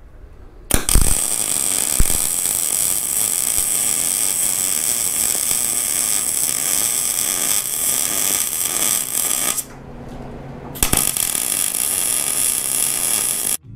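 Arc welding on steel, the welding arc running steadily while laying a weld bead on a steel truck-bed gusset. The arc strikes just under a second in, runs for about nine seconds, stops for about a second, then strikes again for about three seconds.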